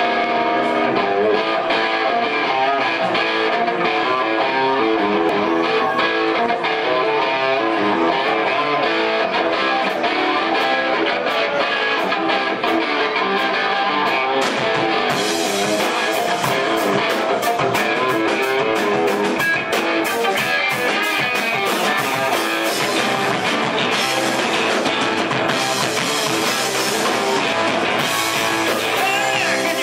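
Live rock band playing: guitar first, with drums and cymbals coming in about halfway through.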